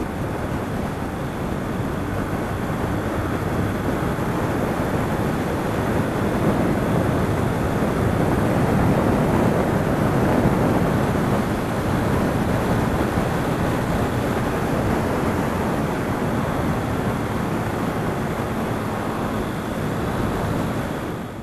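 Motorcycle at highway speed: a steady rush of wind over the microphone with engine and road noise beneath it. It swells a little midway and eases just before the end.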